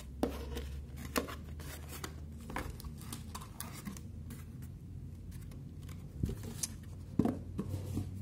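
Cardboard box and its inner cardboard tray being opened and handled: rubbing and sliding of cardboard with scattered sharp taps and knocks, the loudest near the end.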